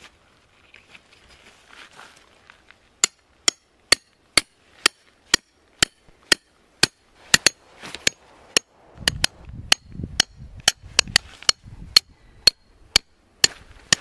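Hammer driving a tent stake into the ground: a steady series of sharp strikes at about two a second, starting a few seconds in and quickening a little in the second half.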